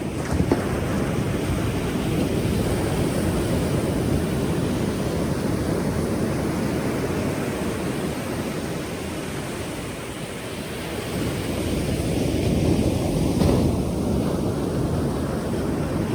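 Pacific Ocean surf: waves breaking and washing in, with a sharp crash just after the start and another wave swelling louder to a peak about thirteen seconds in.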